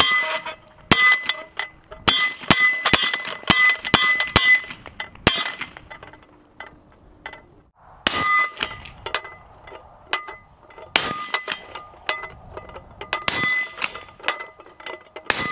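Ruger Mini-14 .223 semi-automatic rifle fired in quick strings of about two to three shots a second, each hit making the steel gong targets ring. A lull of about two seconds comes in the middle.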